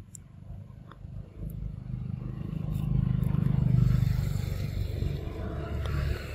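A motor vehicle's engine passing by. Its low hum swells to a peak near the middle and fades toward the end.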